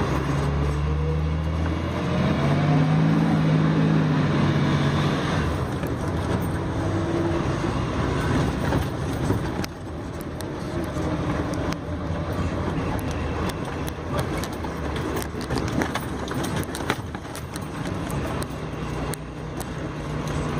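A vehicle on the move, heard from inside the cab. The engine hum rises and falls in the first few seconds, then gives way to steady road noise with frequent rattles and knocks.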